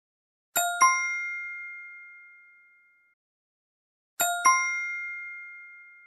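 A 'correct answer' quiz chime: a quick rising two-note ding-ding, played twice, each time ringing out and fading over about two seconds.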